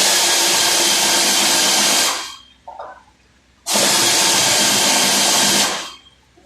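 Two long bursts of compressed-air hissing from an air tool in a body repair shop, each about two seconds, starting and stopping sharply with a short gap between.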